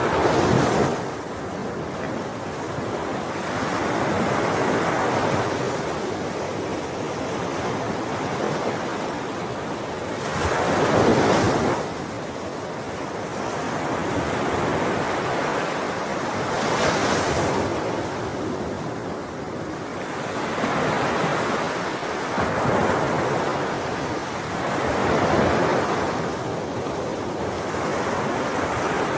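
Ocean waves breaking on a shore, an unbroken wash of surf that swells and falls back every few seconds, with the biggest crashes about a second in, around eleven seconds, and around seventeen seconds.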